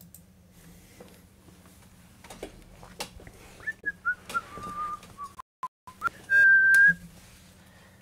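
A person whistling: a few notes stepping down in pitch, then a higher note held briefly and loudly near the end. A few clicks come just before the whistling starts.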